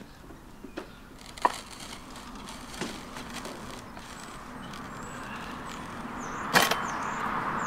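A few sharp wooden knocks as a long wooden board is worked against a boulder and a steel hand truck, the loudest about two-thirds through. Under them a rushing noise swells toward the end, and a few faint bird chirps come near the end.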